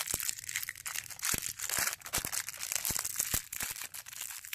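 A small plastic wrapper from a toy packet crinkling and tearing as it is opened by hand: an irregular run of crackles and light clicks.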